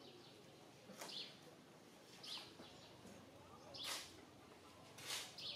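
Faint, high, short chirping calls from an animal, four of them, one every second and a half or so, each with a brief hiss.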